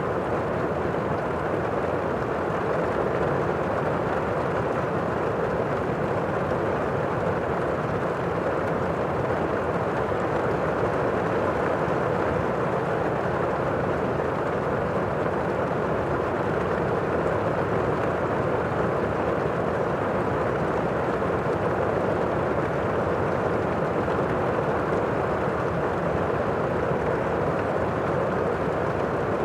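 Heavy rain heard from indoors, a steady, muffled, even rush with no distinct drops or gusts.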